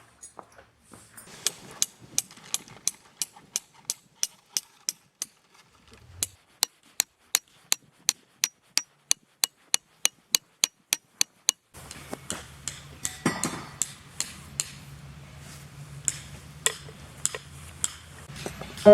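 Tent pegs being hammered into the ground: a long run of evenly spaced sharp strikes, speeding up to a little over two a second, that stops about two thirds of the way through, followed by a few scattered knocks.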